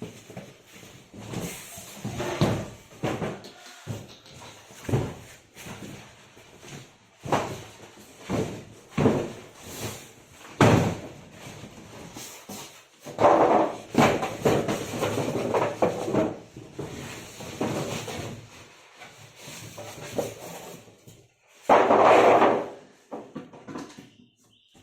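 Irregular knocks, bangs and slams, with longer stretches of rustling or scraping noise, the loudest a few seconds from the end.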